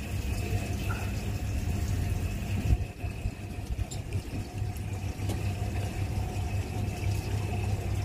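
Fishing boat's engine running with a steady low hum, under the wash of water against the hull; a single thump about three seconds in.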